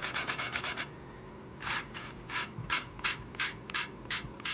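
Intake valve of a Briggs & Stratton 12 hp I/C engine being lapped against its seat with valve lapping compound: a gritty rasping scrape. First comes a quick run of short strokes, then after a pause a slower series of about three strokes a second.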